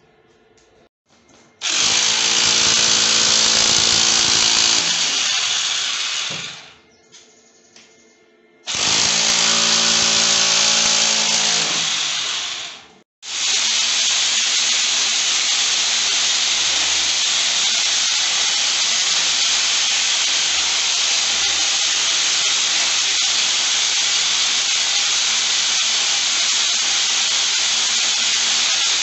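Electric drill boring into a brick and concrete wall, drilling the holes for a wall-mounting plate. It starts about two seconds in and runs twice for a few seconds with short stops, then runs steadily from about halfway through.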